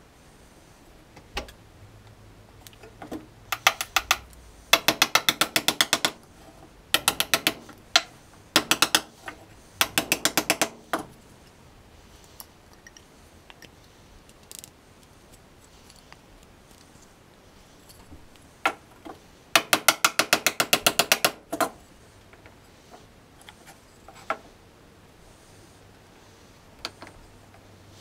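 Rapid, evenly spaced ratchet-like clicking from hand tools, in about six bursts of a second or so with single clicks scattered between; the longest burst comes about two-thirds of the way in.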